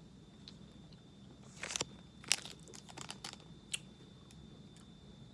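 A person chewing firm, stiff gummy fruit snacks: scattered soft mouth clicks and smacks.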